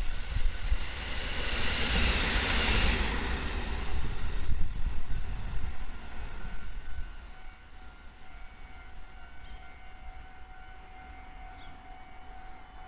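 A train passing close by: a rushing rumble that peaks two or three seconds in and fades away over the next few seconds, leaving a faint steady tone.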